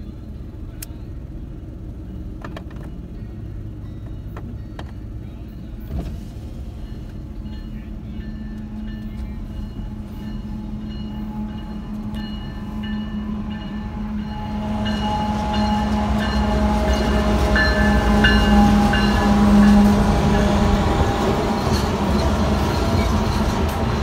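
Freight train passing: a steady rumble of loaded grain hopper cars rolling on the rails, with a few clicks. From about halfway the diesel locomotives' engine drone and a steady whine swell and grow louder as the locomotives come alongside.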